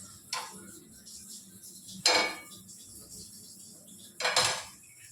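Metal utensils clinking against a cooking pan three times: a light knock, then two louder clanks at about two and four seconds, each ringing briefly.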